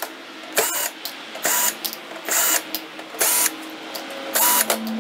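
Cordless electric screwdriver whining in five short bursts about a second apart, backing out the mounting screws of a TV's power supply board.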